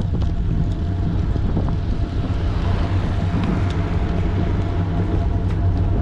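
Wind buffeting the microphone and tyre rumble as a bicycle rolls along a paved path, with a faint steady hum and a few light clicks.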